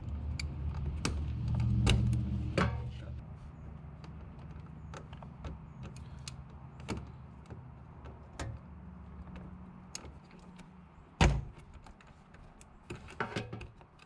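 Flathead screwdriver prying at a plastic push-pin trim clip behind a car's front grille: scattered small clicks and scrapes of metal on plastic, with one louder knock about eleven seconds in.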